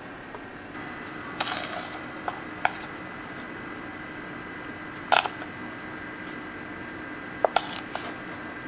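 A metal spoon clinking and scraping against an aluminium tray of sugar as sugar is spooned over a candy-coated apple: several sharp clinks, the loudest about five seconds in, over a steady electrical hum.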